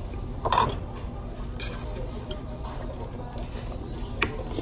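Cutlery clinking against a dinner plate: a short clatter about half a second in and one sharp click near the end, over a steady low hum.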